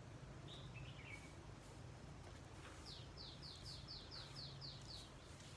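A small songbird calling: a brief high call about half a second in, then a quick run of about nine falling notes, some four a second, over a faint steady low hum.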